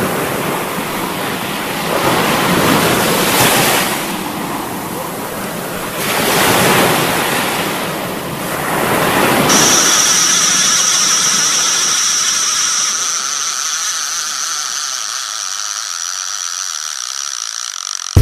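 Sea waves washing, with wind, rising and falling in two swells, then settling into a steady hiss. About ten seconds in, a steady high-pitched tone joins it and the low rumble fades out.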